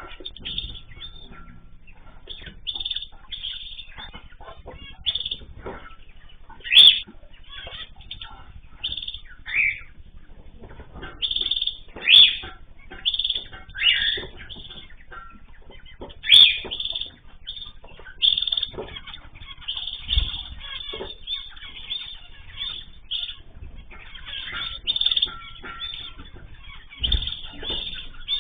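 Mixed small cage birds, the kind kept as cockatiels, zebra finches, canaries and goldfinches, chirping and calling busily, with wing flapping. Three sharp clicks stand out as the loudest sounds, about a third, halfway and two thirds of the way through.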